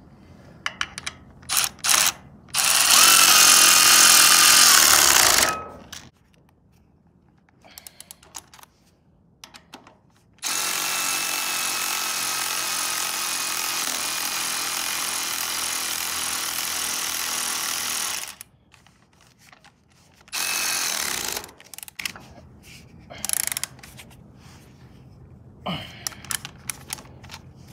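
Milwaukee cordless ratchet running in three bursts, about 3 s, then about 8 s, then a second, as it drives a brake caliper's slide pins in. Small clicks and knocks between the runs.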